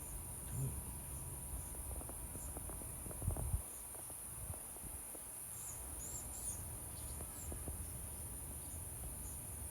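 Steady, high-pitched insect chorus, like crickets, with a few faint short chirps about six seconds in and some low bumps about three seconds in.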